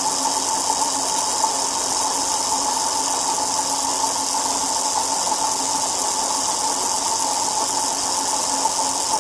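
A motor running steadily, driving the LED-lit wheel round: an even hum with a constant whine and a high hiss, unchanging throughout.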